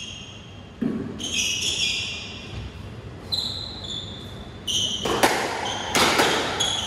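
A squash rally: the ball cracks off rackets and the walls in sharp hits, one about a second in and several in quick succession from about five seconds on. Short high squeaks of players' shoes on the wooden court floor come between the hits.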